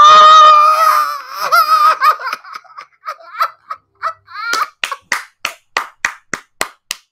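A man's long, high-pitched scream of excitement, then excited whoops and a quick run of laughter, about four 'ha's a second.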